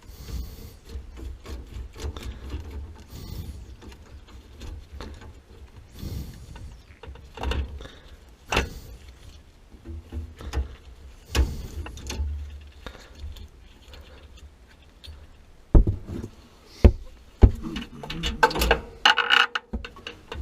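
Irregular knocks, clanks and rubbing from hands-on plumbing work on a water heater's supply line. A cluster of louder, sharper knocks comes about three-quarters of the way through.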